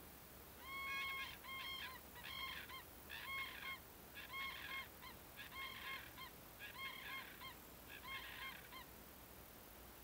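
Common cranes calling: a series of about ten honking calls, roughly one a second, the first the longest and loudest, stopping about a second before the end.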